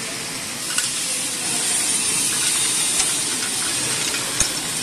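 High-speed chain-type candy forming machine running: a steady hiss with a few sharp clicks.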